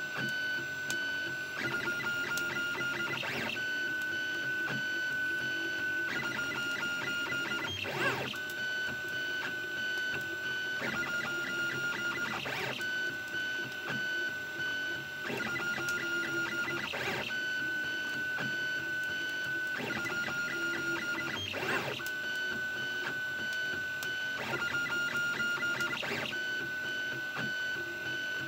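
Anet A6 (Prusa i3-type) 3D printer printing, its stepper motors giving a steady high whine that alternates every two seconds or so with a stretch of fast ticking as the print head changes moves. A short click comes at many of the changeovers.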